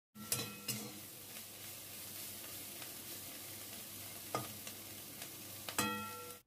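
Prawn heads and shells frying in mustard oil in a metal kadai, sizzling steadily while a metal spatula stirs them. The spatula knocks against the pan a few times, the last knock near the end setting the pan ringing briefly.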